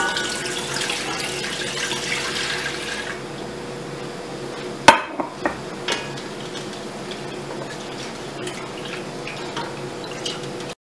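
Vinegar poured from a glass measuring jug into a stainless steel pot of simmering mustard mixture, a steady splashing for about three seconds. About five seconds in comes a sharp knock, then a few lighter taps as the mixture is stirred with a wooden spoon.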